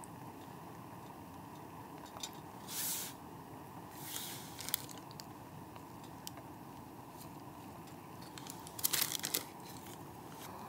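A few brief rustling, crunching handling noises: short bursts about a third of the way in and again a little later, with the loudest cluster near the end. Under them runs a faint steady background hiss.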